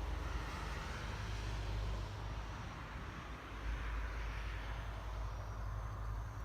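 A vehicle's low, steady rumble.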